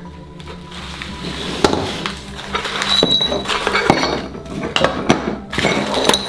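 Broken ceramic tile pieces clinking against each other, with plastic and foil wrapping crinkling as the pieces are unwrapped by hand, starting about a second in.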